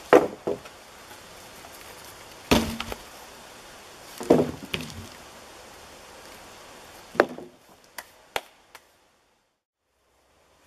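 Wooden poles knocking and clattering as a pole-built shelter is pulled apart: four loud wooden knocks a couple of seconds apart, each with a short rattle, then a few light taps before the sound cuts out near the end.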